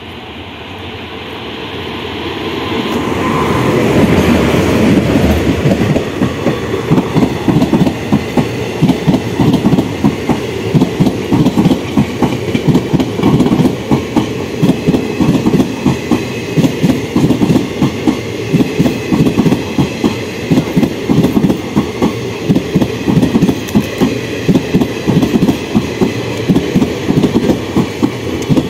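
An Indian Railways WAG5 electric locomotive and its passenger coaches run through at speed. The noise builds as the locomotive nears and passes, peaking about four seconds in. Then the coaches roll by with a steady clickety-clack of wheels over the rail joints, a couple of clacks a second.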